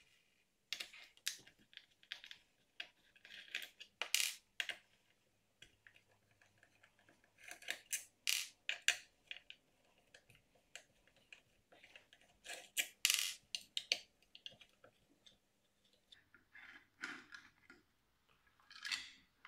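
Small steel bolts being unscrewed with a T-handle Allen key from a motorcycle rear fender and set down one by one on a tabletop: scattered light clicks and taps of metal on metal and on the table.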